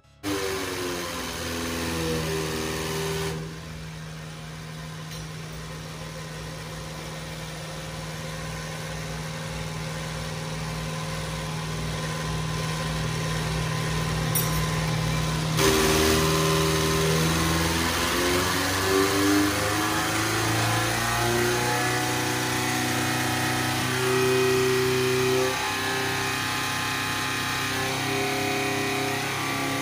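Diesel injection pump test bench running: its electric motor spins the serviced four-element diesel injection pump for calibration, a steady mechanical hum of several tones. The sound drops in level about three seconds in, changes abruptly near the middle, and its pitch then shifts up and down as the bench speed is varied.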